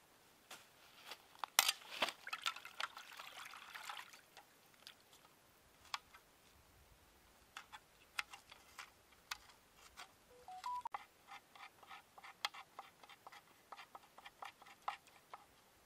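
A small knife slicing fresh red chillies by hand over a wok, giving a long run of crisp separate clicks with light splashes as the pieces drop into the liquid. A denser clatter of clicks and splashing comes in the first few seconds.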